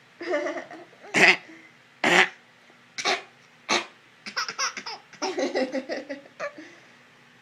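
A young child fake-coughing: four sharp, forced single coughs about a second apart, then a quicker run of laughter.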